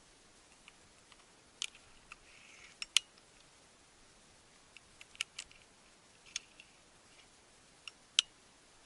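A dozen or so small sharp clicks and ticks at irregular intervals over a faint steady hiss, the loudest about three seconds in and near the end.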